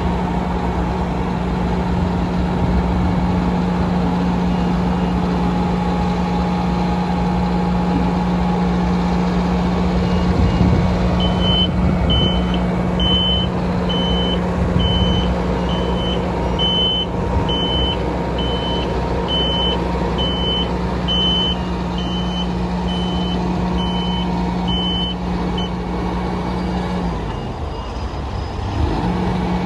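Diesel engine of a BOMAG BP300P asphalt paver running steadily, with a warning alarm beeping a little more than once a second through the middle stretch. The engine sound dips briefly near the end, then comes back.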